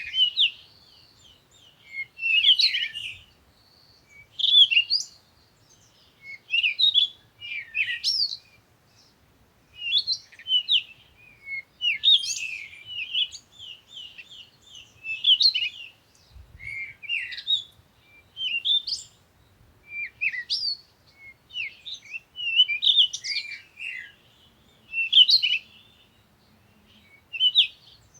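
Songbirds chirping in short bursts of quick twittering notes, one burst every second or two.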